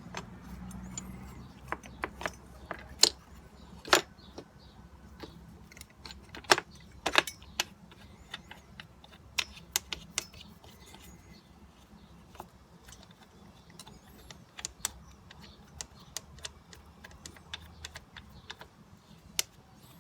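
Irregular metal clinks and taps of a motorcycle's front brake calipers and their mounting bolts being handled and fitted back onto the forks, with a few sharper knocks in the first half.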